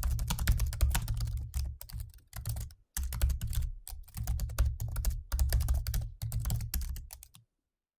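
Fast typing on a mid-2015 MacBook Pro's built-in scissor-switch keyboard: rapid, dense key clicks with a few short pauses. The typing stops abruptly a little over seven seconds in.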